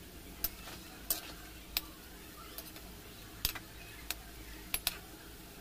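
Onion pakoras sizzling as they deep-fry in oil in a kadhai, with a metal slotted spoon clicking and scraping against the pan about seven times as they are turned.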